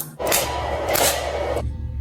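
Background music with a steady bass coming in just after the start, overlaid for its first second and a half by a loud rushing noise.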